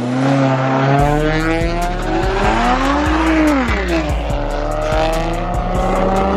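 A 2011 Toyota Avalon's V6 and a Honda Civic accelerating hard side by side in a drag race: engine notes climb in pitch, drop sharply at a gear change about three to four seconds in, then climb again.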